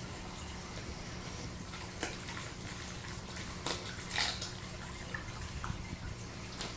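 A rottweiler chewing raw chicken: wet smacking and squelching, with a few sharp crunches about two, four and five and a half seconds in.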